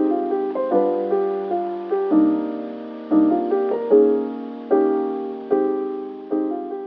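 Soft piano background music, chords struck about once a second and left to ring.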